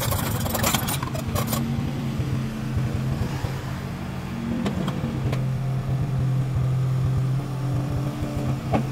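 Mini crawler excavator's diesel engine running steadily under load as the machine climbs onto a trailer, with a few short knocks, most of them in the first second or so.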